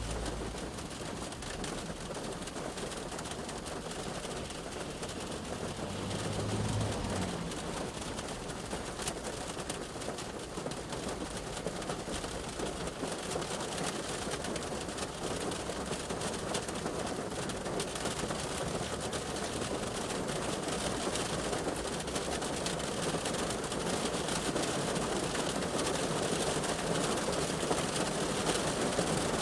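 Rain shower falling on a parked car, heard from inside the cabin as a steady hiss that grows slowly heavier toward the end. A brief low hum comes about six seconds in.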